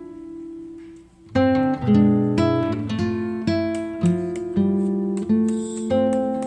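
Background music on a plucked string instrument: a note fades away, there is a short pause about a second in, then a steady run of plucked notes about two a second.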